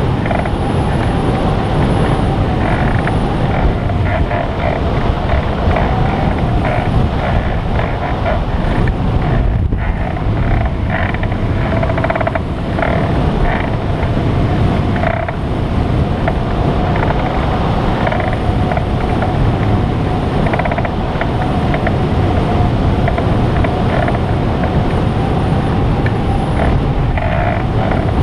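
Steady rush of wind over a microlight trike and the microphone while it glides with the engine shut off and the propeller stopped, with a steady whistling tone running through it.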